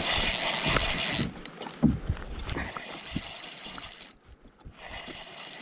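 Fishing reel winding in line on a hooked John Dory: a whirring hiss for about the first second, then quieter clicks and handling noise.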